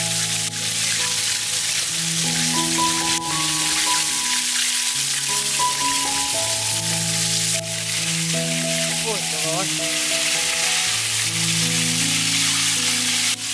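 Flour-coated chicken wings and drumsticks deep-frying in a wok of hot oil: a steady, dense sizzle of bubbling oil, under background music of slow held notes.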